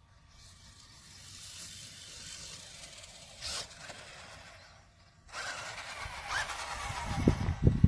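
Radio-controlled buggy driving: a rushing noise that swells and fades, with a brief louder burst a few seconds in. About five seconds in the sound cuts abruptly to a louder rush, and heavy low thumps come near the end.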